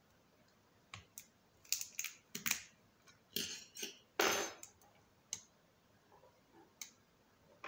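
Small clicks and scrapes of hands handling an opened Oukitel WP6 rugged phone's plastic and metal parts, the loudest a longer scrape about four seconds in.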